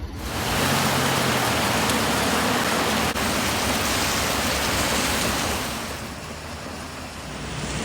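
Heavy rain falling, a steady hiss that starts suddenly and eases a little near the end.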